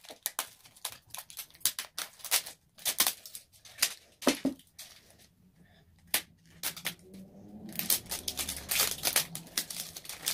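Toy packaging being torn and crinkled open by hand: an irregular run of sharp crackles and snaps, coming thicker near the end.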